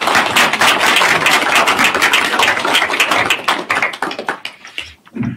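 Audience applauding: many hands clapping, which thins out and dies away about four to five seconds in.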